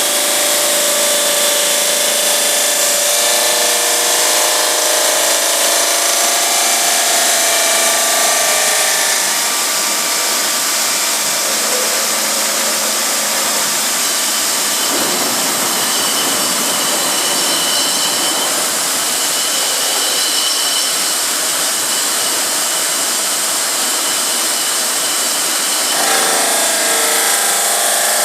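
GMM Brio Easy CNC bridge saw running steadily, its blade cutting granite. A pitched whine sits over the noise for the first several seconds and returns near the end, with a more even hiss in between.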